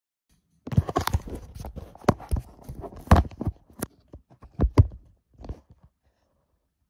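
Handling noise of a phone camera held close to its own microphone: irregular knocks, taps and rubbing, with a few louder thumps. It starts just under a second in and dies away after about five and a half seconds.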